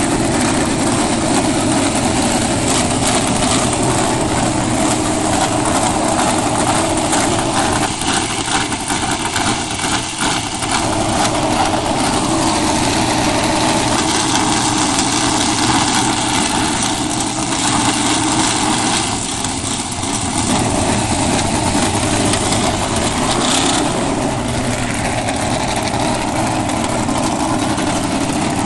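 410 sprint car V8 engines, methanol-burning, running steadily.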